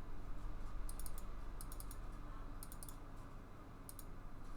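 Quick clicking at a computer, in short runs of three or four clicks about a second apart, as notes are entered one by one into beat-making software, over a faint low hum.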